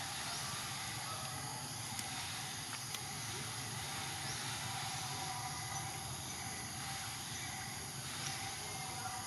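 Steady outdoor ambience of droning insects: a constant even hiss with faint high steady tones and a couple of faint ticks.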